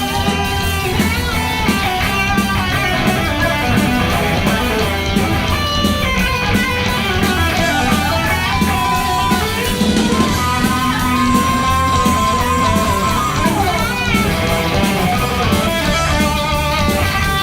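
Live heavy metal band playing an instrumental passage, an electric guitar carrying a lead line over bass and drums. About ten seconds in, a guitar note is held for a few seconds, then bends downward.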